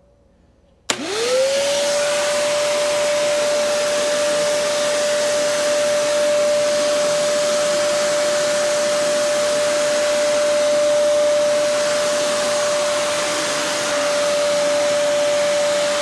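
Kärcher WD2 Plus wet/dry vacuum switched on about a second in, its motor whine rising quickly to one steady pitch. It then runs in blower mode, with a steady rush of air from the hose.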